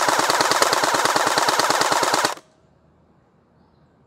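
Splat-R-Ball gel blaster, upgraded with metal gears and an M90 spring, firing hardened gel balls on full auto at about nine shots a second, then stopping abruptly a little over two seconds in.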